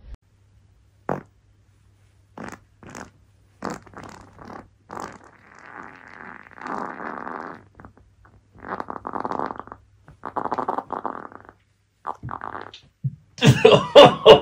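A series of farts: several short separate pops over the first few seconds, then longer drawn-out ones with brief gaps between them. A louder burst with a wavering pitch starts near the end.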